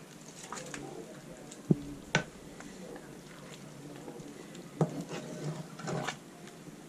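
Cooking pots and utensils being handled, with a few sharp knocks and clatters, three of them loud, and faint voices near the end.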